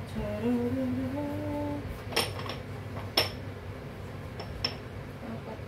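A short hummed phrase, then about five sharp clinks of dishes and cutlery knocking together, each with a brief high ring.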